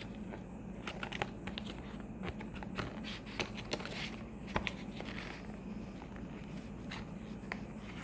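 Hands opening an earbuds' retail box and handling the packaging: scattered clicks, taps and scrapes over a steady low hum.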